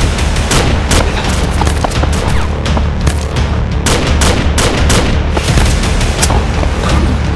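Assault-style rifle firing repeated shots, a few a second in irregular bursts, over a music track with a steady low drone.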